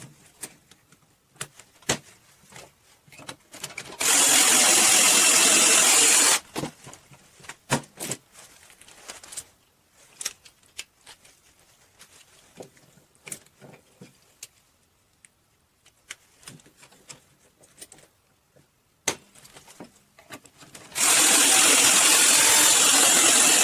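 Ryobi cordless drill running at speed, drilling into a wood block through a small jig. It runs twice: for about two seconds starting four seconds in, and again near the end. Light knocks and clicks of handling between the two runs.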